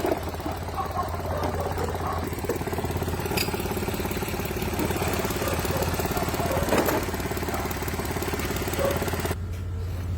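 Mitsubishi Mirage's engine running steadily at an even speed, just after being brought back to life from a no-start. Near the end the higher hiss drops away suddenly while the engine hum carries on.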